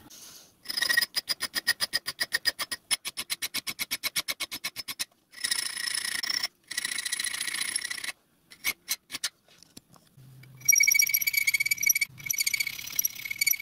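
Hand file rasping across the edge of a milled brass nameplate clamped in a bench vice, deburring it after milling. It starts with a fast run of short strokes, then goes on in longer, continuous strokes with short pauses.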